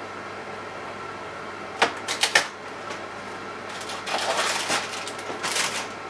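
Toshiba microwave oven running with a steady hum while heating potatoes. About two seconds in there is a quick run of four sharp clicks, and near the end two short bursts of crackling.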